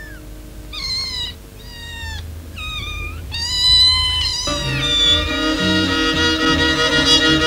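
Kittens mewing, a run of short high calls. Then a violin starts playing about four and a half seconds in.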